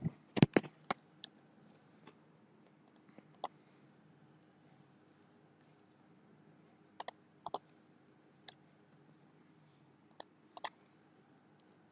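Scattered clicks of a computer keyboard and mouse. There is a quick run of keystrokes at the start, then single clicks and pairs spaced a few seconds apart.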